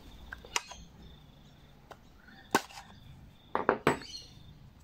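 Sharp clicks and taps of a metal pick and plastic carburetor parts on a Victa lawnmower carburetor being taken apart: one about half a second in, another midway, and a quick run of three near the end.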